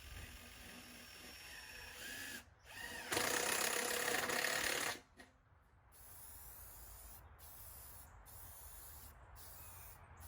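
Power drill running for about two seconds, starting about three seconds in, between quieter stretches of outdoor background.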